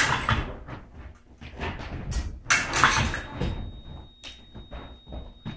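Fencing bout on a strip: irregular clattering knocks and stamps from footwork and blade contact, loudest at the start and about two and a half seconds in. About three seconds in, the electric scoring machine sounds a steady high beep for a couple of seconds, signalling a registered touch.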